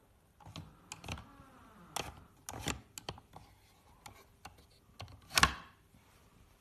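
Wooden gear-shift lever of a handmade plywood model transmission being moved through its gate, with a series of sharp wooden clicks and clacks and one louder knock near the end.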